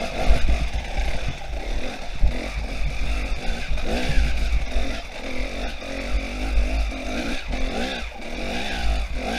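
Enduro dirt bike engine revving up and down, its pitch rising and falling again and again as the bike climbs a rough trail, with a heavy low rumble on the helmet-camera microphone.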